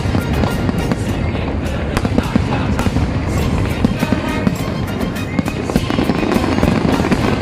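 Fireworks bursting and crackling in a dense, continuous barrage, many sharp bangs and cracks in quick succession over a steady rumble.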